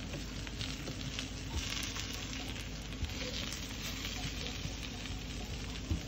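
Banana peel strips sizzling steadily on a hot electric griddle, with a few faint taps of a spatula pressing them down.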